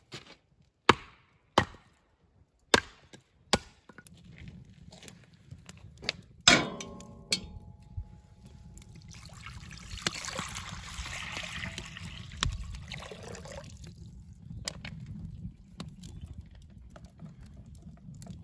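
Five sharp chopping strokes about three quarters of a second apart, then a clank that rings on for a few seconds. After that, water pours for about four seconds, filling the pot for the stew to boil.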